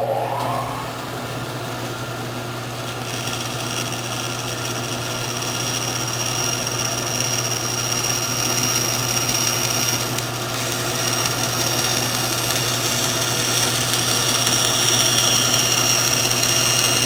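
Bandsaw running and cutting a 3/4-inch MDF template board. The motor spins up at the start with a rising whine, then runs with a steady hum, with the blade noise carrying on throughout.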